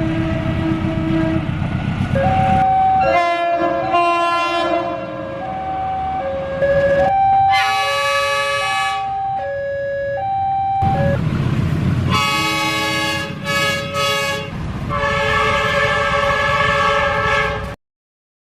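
Air horns of CC201 diesel-electric locomotives sounding over low engine rumble. First comes a held tone, then a run of alternating higher and lower notes. After that come several short chord blasts and a long one, which cuts off abruptly near the end.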